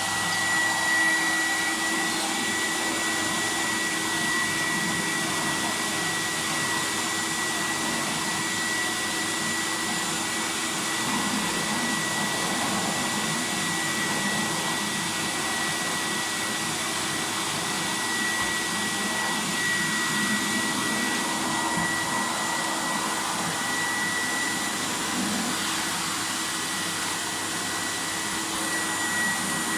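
Fagor Electronic 2.350 vacuum cleaner running steadily with a constant high whine over its airflow hiss, the pitch and rush of air shifting slightly as it is worked over the floor.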